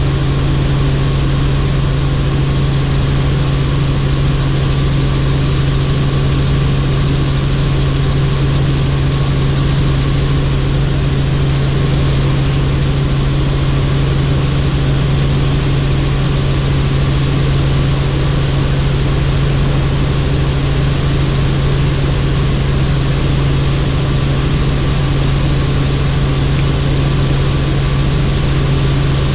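Helicopter in flight: steady rotor and turbine drone, a strong low hum over an even rushing noise, without change.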